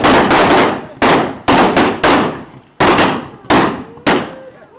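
A volley of gunshots from blank-firing guns, about eight sharp cracks that come further apart as it goes on, each ringing off with a short echo.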